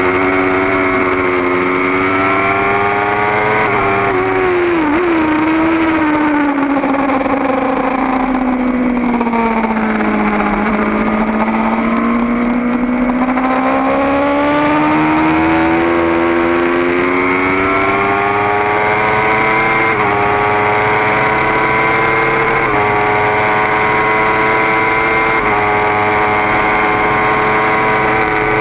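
Kawasaki ZX-10R inline-four engine at racing revs, heard onboard. Its note falls for several seconds as the bike slows for a corner, then climbs steadily as it accelerates out, and in the second half it rises in short runs broken by sudden drops in pitch at each quick upshift, about every two and a half seconds.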